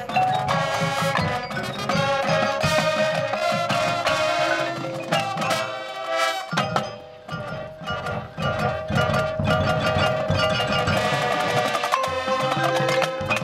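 High school marching band playing, with drums and the front ensemble's mallet percussion (marimbas and bells) prominent. The sound drops briefly about six seconds in before the full band comes back in.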